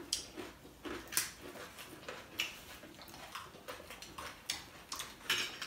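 People eating at a table: irregular soft clicks and crunches of chewing, with an occasional light tap of a utensil on a plate.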